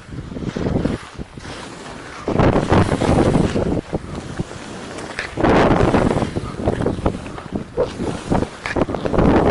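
Wind buffeting the microphone in irregular loud gusts, with the strongest surges a couple of seconds in and about halfway through.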